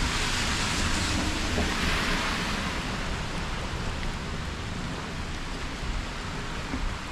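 Rain falling steadily, an even hiss of downpour that is a little heavier in the first couple of seconds and then eases slightly.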